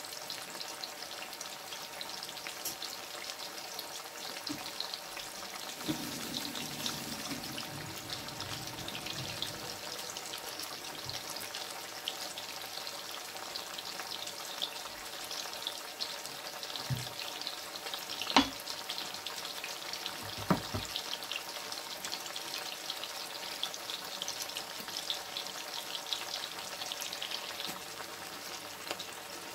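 Breadfruit slices deep-frying in hot oil in a stainless steel pot: a steady crackling sizzle of fine pops, with a few sharp knocks past the middle.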